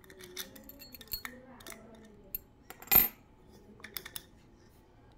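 Brass Navtal 7-lever padlock and its key handled: small metallic clicks and rattles as the key works the lock, then one loud sharp click with a short ring about three seconds in as the shackle snaps shut, followed by a few lighter clicks.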